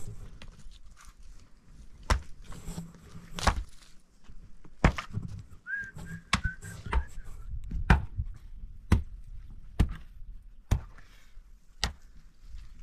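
Repeated sharp strikes, about one a second, typical of a hand tool hitting wood or earth. A brief high whistle-like tone comes about six seconds in.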